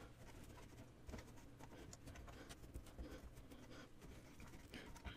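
Near silence with faint, scattered scratching and rustling as yarn loops are pushed down the pegs of an afghan knitting loom by hand.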